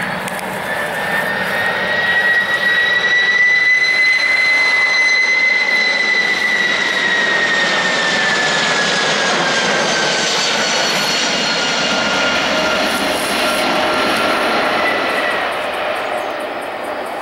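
Boeing 747-400F cargo jet's four turbofan engines on final approach, passing low overhead: a loud roar with a high turbine whine that drops slowly in pitch as the jet goes by, easing off near the end as it moves away toward the runway.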